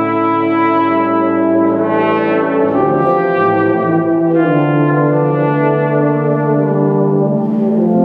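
Tuba and euphonium ensemble playing slow, sustained brass chords that change every second or two, with a trumpet sounding above them.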